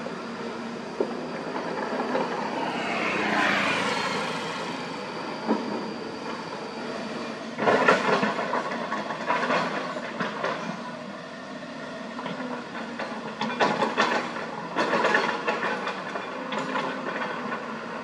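Hyundai 220 excavator working: diesel engine and hydraulics running steadily, with loud bursts of clattering as dirt and rock drop into a steel dump-truck bed, about eight seconds in and again around fourteen to fifteen seconds. About three seconds in an engine's pitch sweeps down.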